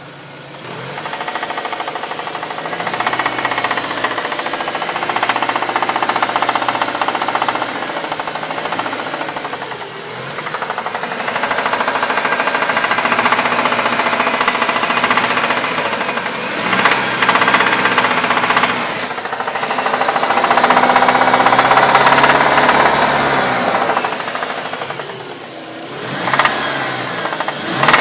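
1998 Dodge Neon four-cylinder engine running with a steady knocking, revved up and down several times so that the knock swells and eases with the engine speed.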